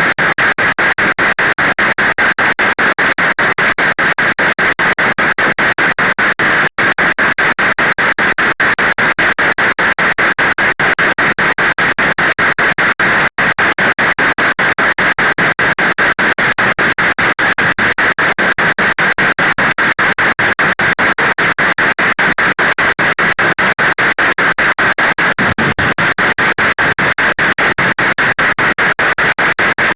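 Heavy rain falling: a loud, dense, steady hiss with a fast, even flutter.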